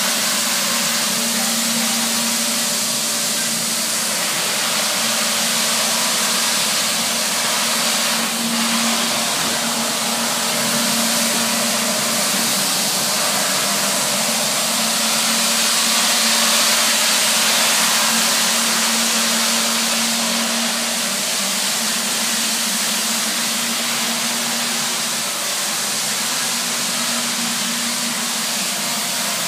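Battery-powered Nilfisk BA531D walk-behind scrubber dryer running while scrubbing: a steady rushing hiss from its vacuum motor with a low hum underneath.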